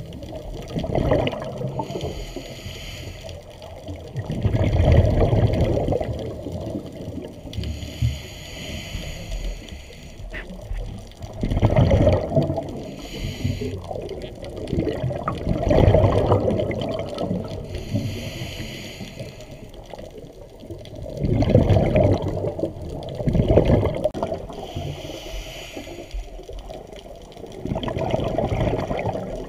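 A scuba diver breathing underwater through a regulator: loud rushes of exhaled bubbles every few seconds, with a fainter hiss between them.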